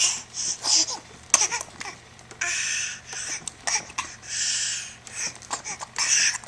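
Baby babbling and giggling in short breathy bursts, about five of them, with pauses in between.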